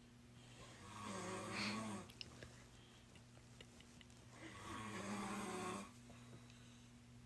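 A person snoring: two drawn-out snores about three and a half seconds apart, over a faint steady hum.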